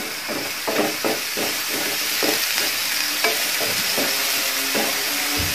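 Chopped onions frying in hot oil in a steel pan, sizzling steadily, while a wooden spatula stirs and scrapes them across the pan in quick repeated strokes. This is the sautéing stage, softening the onions for a masala.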